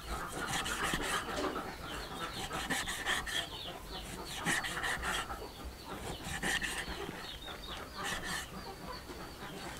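Cleaver chopping pork belly on a wooden chopping board: a run of sharp knocks as the blade strikes the board. Birds call repeatedly in the background.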